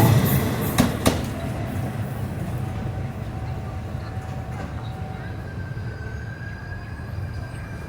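Passenger train running along the station track: loud rail noise at first that fades within a couple of seconds to a low steady rumble, with two sharp wheel knocks about a second in and a faint thin squeal in the later part.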